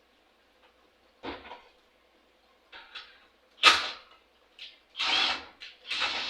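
A series of knocks, scrapes and clatters of tools and mower parts being handled during reassembly. The sharpest clatter comes about halfway through, and a longer scraping handling sound runs near the end.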